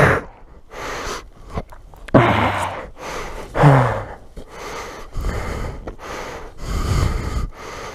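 A man breathing hard and sighing, out of breath and exhausted from heavy exertion. He lets out a series of loud, heavy exhalations, and the two loudest, about two and three and a half seconds in, end in a groan that falls in pitch.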